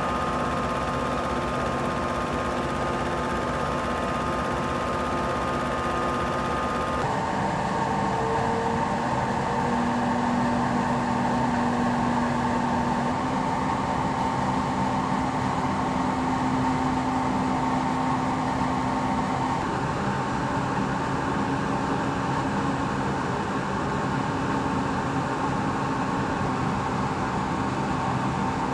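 Engine-driven water pumps on fire-service trucks running steadily, pumping floodwater out of a flooded underpass: a continuous mechanical drone with a steady hum whose pitch changes about seven seconds in and again about two-thirds of the way through.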